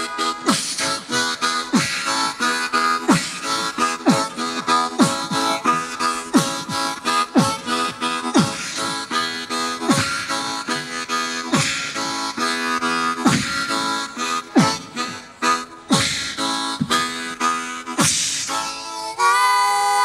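Solo blues harmonica imitating a train: fast rhythmic chugging pulses, with a falling pitch swoop about once a second. Near the end it changes to a steady held chord, like a train whistle.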